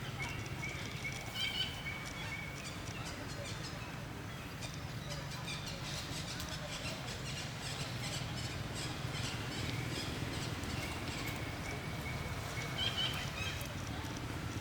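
Outdoor ambience: a steady low rumble with scattered high animal chirps and short calls, plus small clicks.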